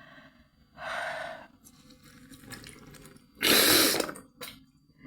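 Forceful blowing out through a congested nose to clear mucus. A shorter blow comes about a second in, then a louder one past the three-second mark.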